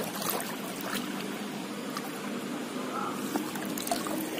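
Water splashing and dripping as a hand scoop net is swept through shallow water and lifted out, with small sharp splashes over a steady low hum.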